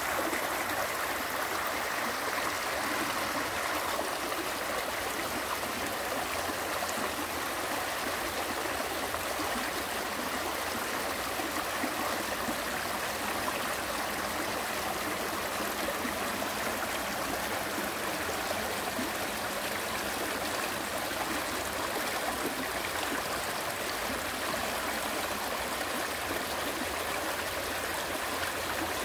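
Mountain stream running steadily over rocks: a continuous rushing and gurgling of flowing water.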